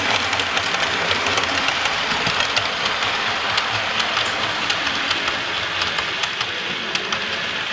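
Model train running along the track: a steady running noise with many irregular clicks from the wheels on the rails, easing slightly as it moves away.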